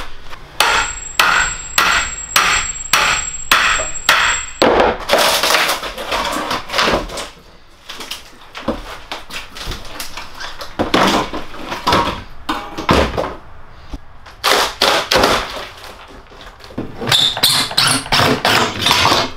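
Steel pry bar being driven under a rotted plywood subfloor on a bus's metal floor: a quick run of about eight strikes, two a second, with a thin high ring over them, then the plywood cracking, splintering and scraping as it is levered up, with more clusters of knocks later.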